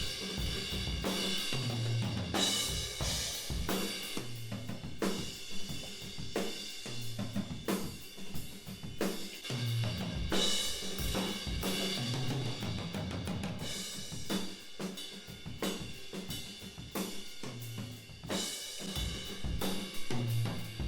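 Recorded acoustic drum kit playing a steady groove: kick drum about once a second under snare hits and a bright hi-hat and cymbal wash. It is heard through room microphones, switched back and forth between a mid-side pair and a Blumlein pair with a mono room mic.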